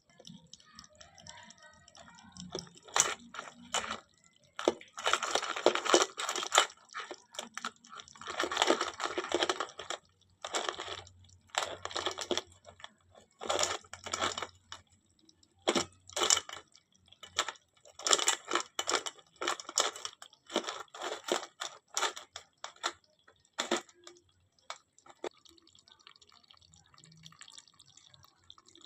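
Live mud crabs making sharp clicks and spurts of crackling, in irregular bursts of a second or two with short pauses between.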